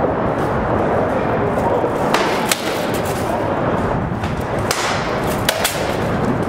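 Rattan sword blows in armoured combat striking shield and armour: a few sharp cracks, the loudest about two and a half seconds in and a quick pair near the end, over a steady rushing background noise.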